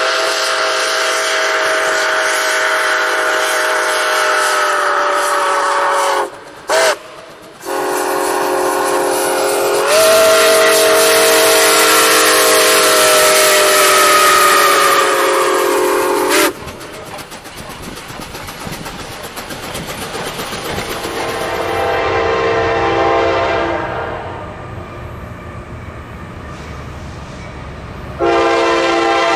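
A steam locomotive's chime whistle blows two long blasts with a short toot between them, the second sagging slightly in pitch before it cuts off. A quieter stretch of train rumble follows, and near the end a diesel locomotive's air horn starts sounding loudly.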